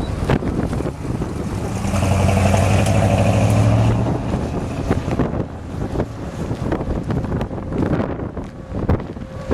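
Strong wind buffeting the microphone in gusts. From about two seconds in, a vehicle's steady engine hum runs for about two seconds.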